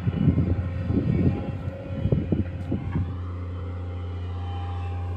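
Heavy diesel engines of an excavator and a dump truck running with a steady low drone. Wind buffets the microphone in gusts over the first three seconds, then the drone continues alone.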